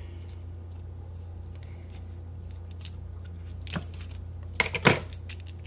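Garlic cloves being peeled with a knife on a wooden cutting board: faint papery crackles of the skins, then a few short, sharp scrapes and tears about four to five seconds in. A steady low hum runs underneath.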